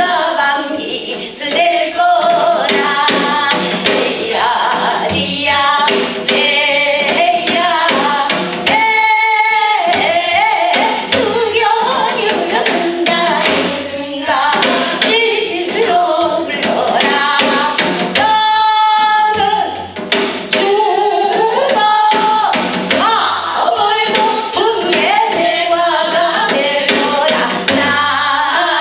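A group of women singing a Korean folk song (minyo) together, with a drum beating a steady rhythm underneath. Twice the voices hold a long note with a wide wavering vibrato, about nine seconds in and again past the middle.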